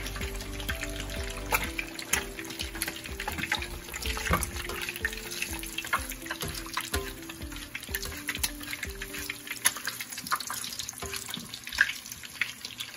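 An egg frying in hot oil in a nonstick pan: a steady sizzle full of small pops and crackles.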